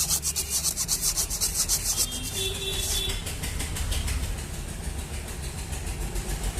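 Sandpaper scraping rust off the rusted shaft of a TVS Jupiter scooter's clutch pulley as it turns, a rapid rhythmic rasping of about ten strokes a second that weakens after about three seconds.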